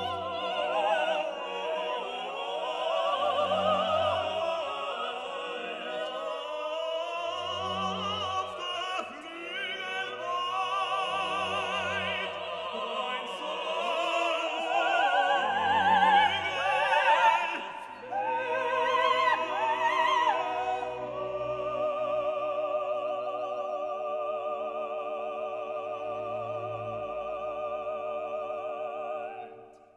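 Operatic singing with orchestra. The singer's voice wavers over low notes that come about every four seconds, then about two-thirds of the way through the music turns to long held chords that fade out at the end.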